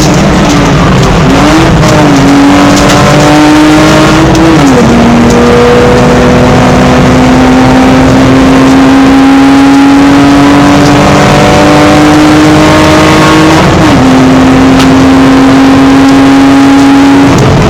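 BMW E46 320i's straight-six racing engine pulling hard under full throttle, its note climbing steadily with two upshifts, about five seconds and fourteen seconds in, before the driver lifts off near the end. Heavy wind and road noise lie under the engine.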